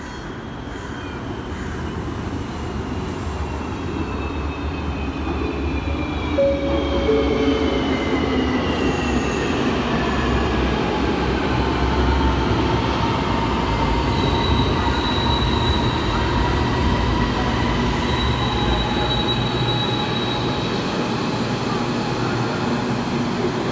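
Light rail train pulling into the station and slowing to a stop. Its rumble grows louder over the first several seconds, then a whine slides slowly down in pitch as the train brakes, with steady high-pitched squealing midway.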